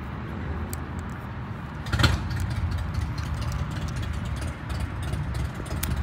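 Steady low engine-like rumble in the background, with small sharp clicks of metal screwdriver bits and a valve-core tip being handled and fitted back into a multi-bit driver, and one louder knock about two seconds in.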